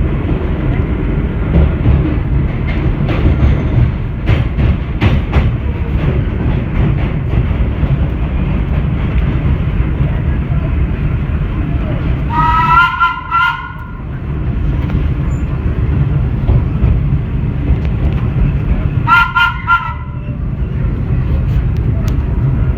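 Vintage IRT Low-Voltage subway train running, with a steady low rumble of wheels on track and a few wheel clicks about four to six seconds in. A train horn sounds twice, once about twelve seconds in and once about nineteen seconds in, each a short pulsing toot of about a second.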